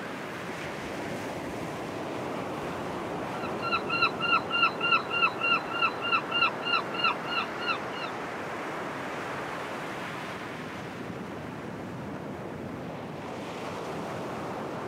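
Steady ocean surf, with a run of about fifteen short calls from about four to eight seconds in, three or four a second, each dipping in pitch at its end.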